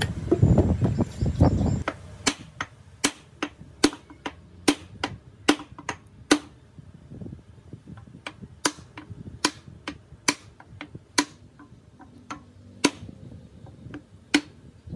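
Hammer blows on a wooden block held against a fire pump's casing, knocking it into place: a run of sharp, separate knocks, roughly one a second, with a short pause partway through. They follow a couple of seconds of low rumbling at the start.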